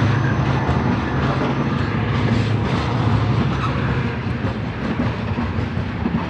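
Covered hopper wagons of a freight train rolling past, wheels clattering over the rail joints, with a low drone that fades after about four seconds.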